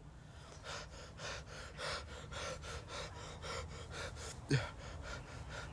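A person breathing fast and heavily, about three breaths a second, with a short voiced gasp about four and a half seconds in, the loudest moment.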